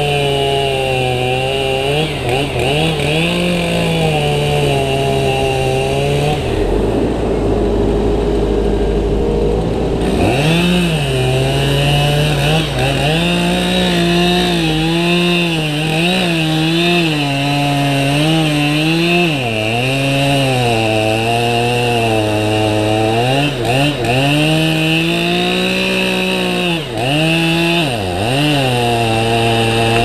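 Two-stroke chainsaw cutting into a eucalyptus trunk, its engine note sagging under load and picking up again over and over as the chain bites. For a few seconds near the start it gives way to a lower, steadier mechanical drone before the saw returns.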